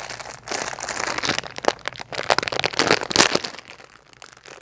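Plastic candy bag crinkling and crackling as it is opened by hand, in quick irregular snaps that are loudest about three seconds in and ease off near the end.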